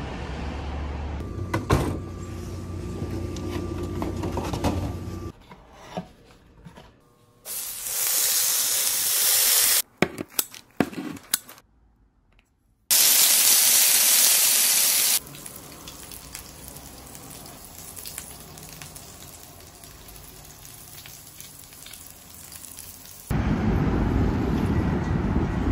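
Meat sizzling on a tabletop grill in two loud bursts of about two seconds each, after a stretch of low steady hum with a click or two. Street traffic noise comes in near the end.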